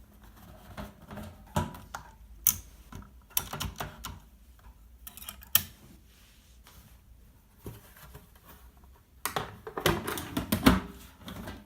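Hermes Baby portable typewriter clacking: irregular sharp mechanical strikes, spread out at first, then a dense run of louder clacks near the end.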